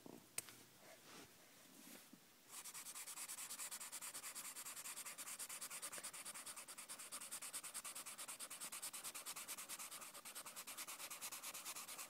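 Felt-tip marker scribbling fast back and forth on paper while colouring in: a rapid, even scratching of many strokes a second. It starts about two and a half seconds in, after a few soft knocks and a sharp click.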